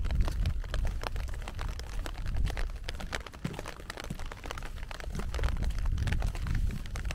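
Rain falling, with many close drop impacts ticking irregularly over a low rumble.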